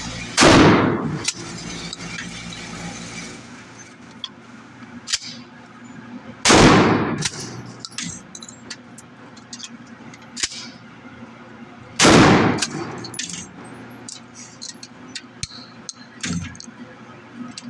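Three shots from a pump-action 12-gauge shotgun, about six seconds apart, each loud and sudden with an echoing tail, and fainter clicks and clacks between the shots.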